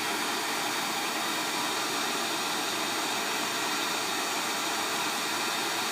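Heat gun on high blowing a steady hiss of hot air onto a phone board, melting the solder under the old USB charger port so the port can be lifted off.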